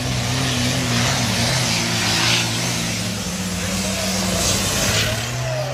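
Competition pulling tractor's engine running at full power: a loud, steady note over a wide rush of noise.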